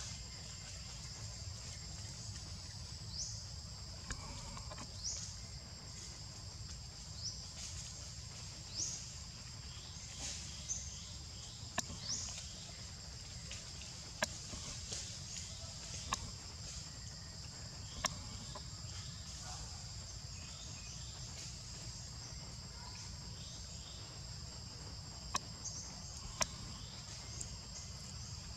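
A steady, high-pitched insect chorus, with short upward chirps over it and a few sharp clicks, over a low outdoor rumble.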